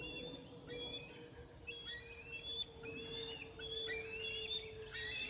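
Juvenile bald eagles calling: repeated series of short, high, thin chirping notes.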